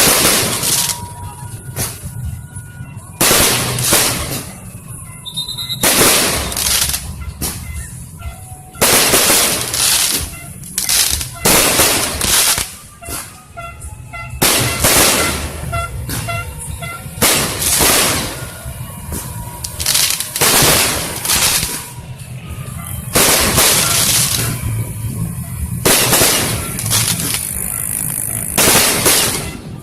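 Fireworks going off one after another, about a dozen loud bangs with crackle, one every one to three seconds, over a steady low rumble.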